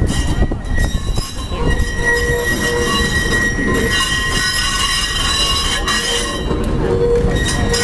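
Restored vintage tram No. 12 rolling past close by: its steel wheels rumble on the rails with a steady, high-pitched squeal of wheel against track.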